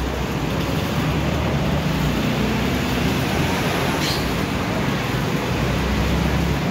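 Steady city road traffic noise, a continuous low rumble of passing vehicles, with one brief sharp sound about four seconds in.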